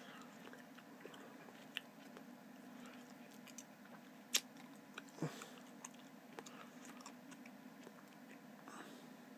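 Quiet room tone with a steady low hum and scattered faint clicks, with one sharper click about four and a half seconds in.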